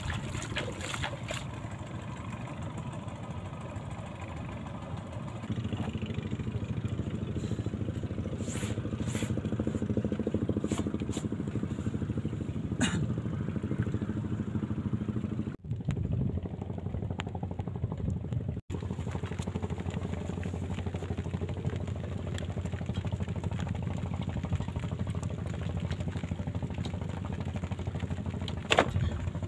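A small engine running steadily, with a few sharp clicks.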